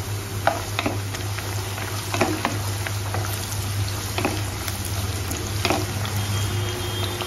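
Sliced onions, garlic and cashews sizzling in hot oil in a nonstick kadhai, with the spatula scraping and knocking against the pan as they are stirred. A steady low hum runs underneath.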